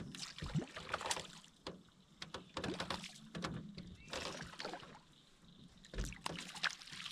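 Clicks and knocks of handling aboard a small fishing boat, with two dull thumps on the hull about half a second and six seconds in, over a faint steady low hum.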